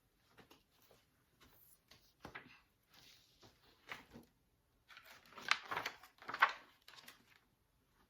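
Soft rustling and light knocks of a large picture book being handled, with two louder rustles about two-thirds of the way through.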